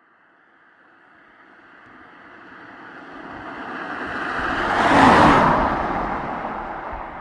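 A car passing by: tyre and engine noise growing steadily from far off, loudest about five seconds in as it goes past, then fading away.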